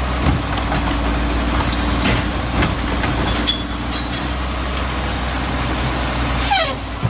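Heavy truck engine running steadily at idle, starting and stopping abruptly, with a tone falling in pitch near the end.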